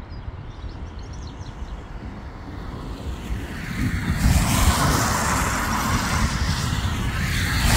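Wind rumbling on the microphone, then from about four seconds in a growing rush of noise. It is the distant Boeing 767's jet engines spooling up to takeoff power for the takeoff roll, mixed with a car's tyres hissing on the wet road as it approaches.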